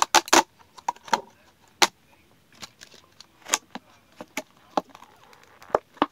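Clear plastic wrapping of a fudge package crinkling and crackling as it is worked open by hand, in irregular sharp crackles, loudest in a quick cluster at the start.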